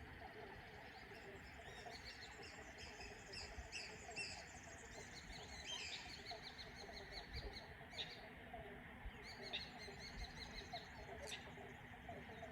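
Faint chorus of small birds chirping and twittering in quick high calls, with a few sharp single notes in the second half.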